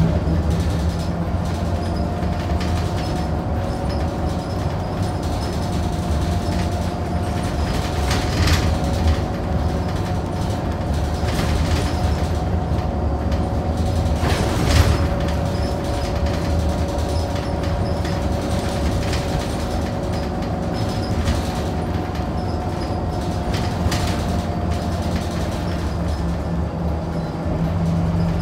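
Scania DC9 9-litre six-cylinder diesel bus engine running while the bus is under way, heard from inside the bus as a steady low hum with a steady whine above it. Three sharp knocks or rattles come through, about a third of the way in, near the middle and near the end.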